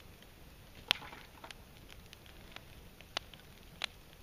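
Wood fire crackling quietly, broken by a few sharp pops, the loudest about a second in.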